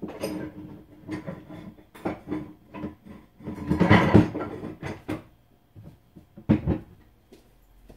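A run of short knocks and clatters from kitchen things being handled, with a longer scraping rustle about four seconds in and a sharp knock later on.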